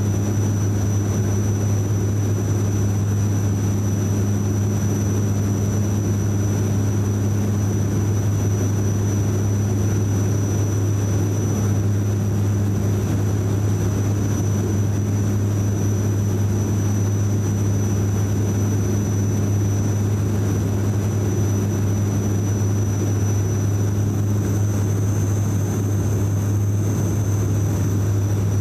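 Cabin sound of a De Havilland Canada Dash 8-400 turboprop on final approach, heard from a window seat beside the propeller: a steady low propeller drone from the Pratt & Whitney PW150A engines with a thin high engine whine above it. The whine rises slightly in pitch near the end.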